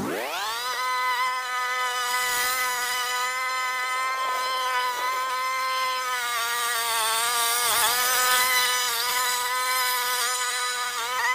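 A small garden-equipment motor speeds up within the first second, then runs with a steady high whine that dips briefly in pitch about eight seconds in and again near the end.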